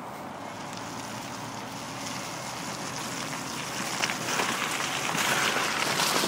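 Jeep Rubicon driving slowly over a rutted, frozen grassy track: tyres and engine rumbling over rough ground with wind noise on the phone's microphone, growing louder about four seconds in.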